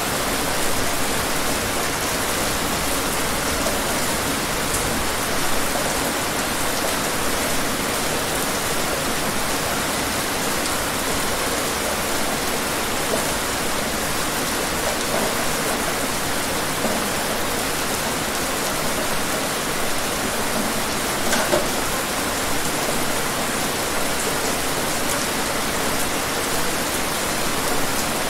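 Steady rain falling: an even, constant hiss with a few slightly louder drop ticks.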